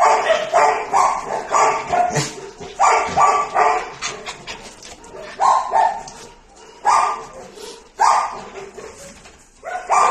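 A dog barking in play, in short runs of quick barks with pauses between.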